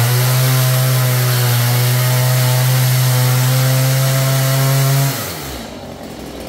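Two-stroke petrol chainsaw held at full throttle, running steadily as it cuts along a wooden frame in a wall opening. About five seconds in the throttle is released and the engine winds down toward idle.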